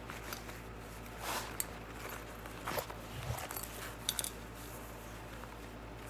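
Scattered small clicks and rustling of hands working on a mountain bike, with a quick run of sharp ticks about four seconds in.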